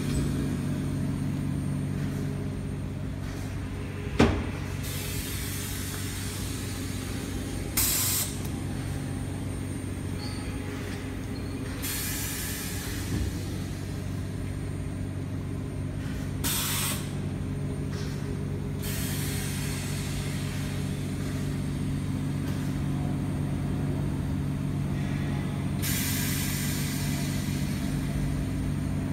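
Oxygen-fed ozone generator equipment running with a steady electrical hum. Several bursts of hissing air come and go, and there is one sharp click about four seconds in.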